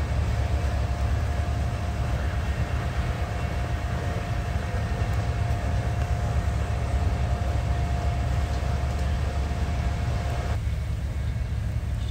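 Steady low vehicle engine and road rumble, with a faint steady tone above it. The higher part of the noise and the tone cut off about ten and a half seconds in, leaving the low rumble.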